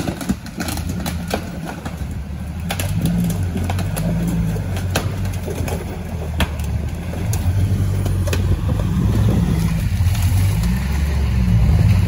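Off-road 4x4's engine running under load, getting louder over the second half, with scattered sharp cracks and knocks.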